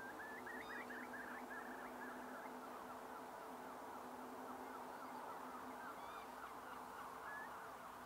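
A distant flock of birds calling: a continuous chatter of many short, overlapping chirping notes, faint, over a low steady hum.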